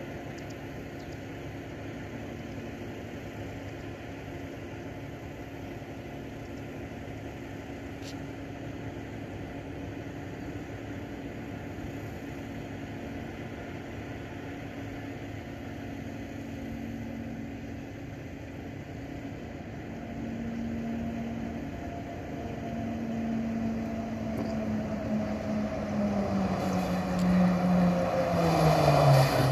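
Airport rescue fire truck's diesel engine running under load as it drives down the runway toward the listener, growing steadily louder over the last ten seconds, with its engine tone falling in pitch over the last few seconds.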